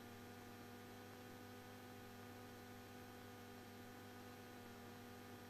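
Near silence: only a faint steady hum.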